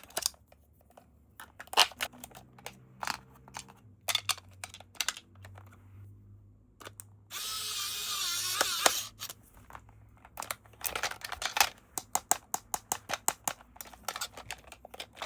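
Plastic toy packaging and parts being handled: scattered clicks, taps and small rattles, with a louder rustle lasting about two seconds partway through.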